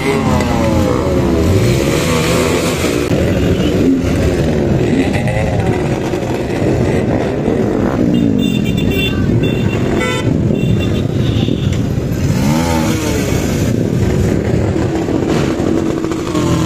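Several motorcycle engines running and revving, their pitch rising and falling, with a few short horn beeps about eight to eleven seconds in.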